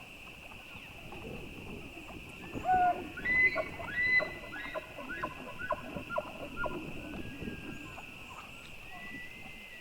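Bull elk bugling: long, high whistled calls, several overlapping, with a louder run of shorter falling calls about three to seven seconds in.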